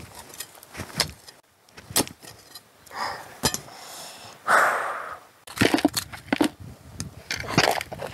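Hand-digging in soil: a small digging tool knocking and scraping into the dirt in a string of irregular strikes, with clods of earth being scooped into a plastic bucket near the end, where the knocks come thicker.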